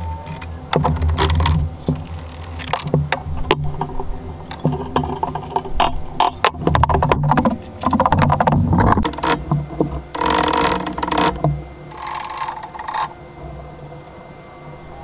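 Irregular metallic clanks, knocks and rattles of hand tools and parts during work on a UTV's front suspension, with two longer noisy stretches about ten and twelve seconds in.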